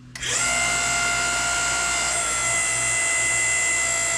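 Hydraulic pump of a tractor splitting stand starting up and running with a steady high whine. It is the power unit driving the stand's rams as the valve levers are worked to roll the tractor halves apart.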